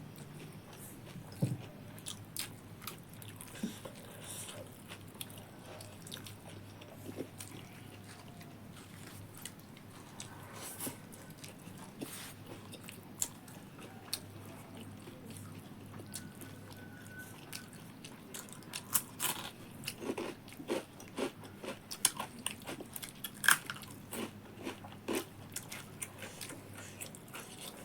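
Someone eating crunchy food, singju salad and green onion pakora, with scattered crisp bites and chewing. The crunches come thicker and louder in the last third.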